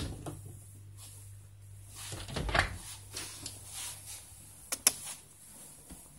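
Clicks and knocks of a glass patio door being opened, with the loudest, duller knock about two and a half seconds in and two sharp clicks about five seconds in, over a low steady hum.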